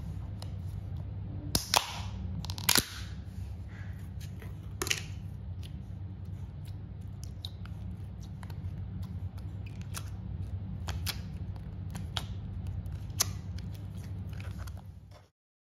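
Snap-on lid of a plastic slime tub being pried open, with a few sharp plastic clicks about two seconds in. Then scattered small clicks and pops follow as a finger pokes and presses the slime in the tub, over a steady low hum.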